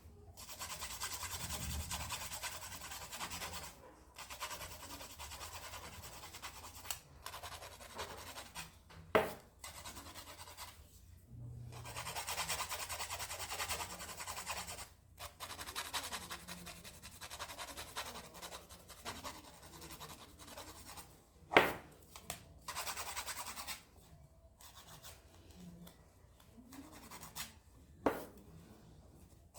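Scratching and rubbing of a tool working a fingernail and cuticle during a nail-care treatment, in stretches broken by short pauses, with three sharp clicks.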